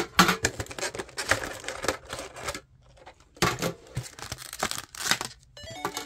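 Foil trading-card booster pack wrapper being torn open and crinkled, in two rustling spells with a short pause between them. Background music comes up near the end.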